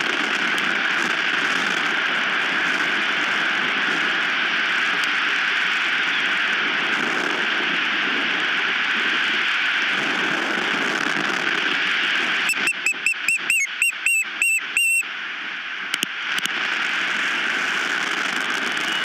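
Strong wind rushing over the microphone, a steady loud hiss. About two-thirds of the way in, an osprey gives a rapid run of about ten sharp, high chirping calls lasting two to three seconds.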